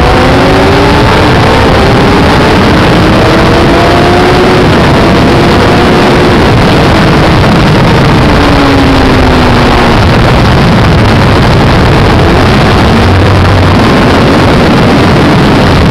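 Yamaha sport motorcycle engine at high revs on track, heard from a camera on the bike: the pitch climbs and steps down as it shifts up through the gears, then falls once under deceleration around the middle. Heavy steady wind rush over the microphone.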